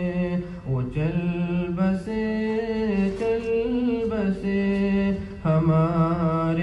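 A male voice singing a nasheed, drawing out long held notes that step between pitches, with short breaths between phrases.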